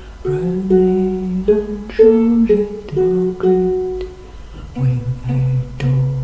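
Ukulele played solo in the closing bars of a song, a run of chords changing about every half second, with a wordless vocal line over it.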